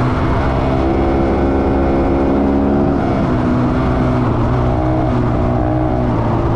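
Rally motorcycle engine running at a steady cruising speed on a dirt road, its note easing briefly about halfway through and then steadying again.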